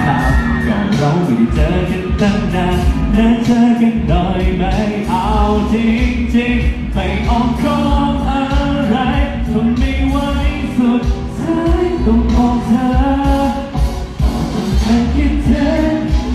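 Live pop song: a male singer's voice over full band accompaniment, with a steady beat.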